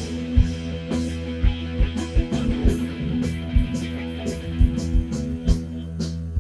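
Background music led by guitar, with recurring low beats.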